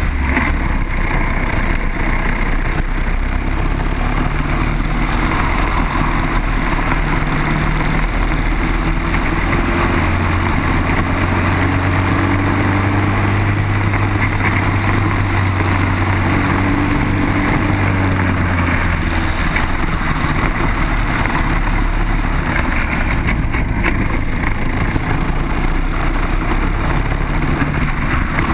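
Onboard sound of a Briggs & Stratton four-stroke kart engine running at racing speed. Its note rises and falls as the throttle opens and closes through the corners.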